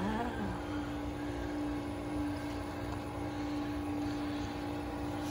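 Frigidaire countertop ice maker running with a steady hum that holds one even tone while it makes ice.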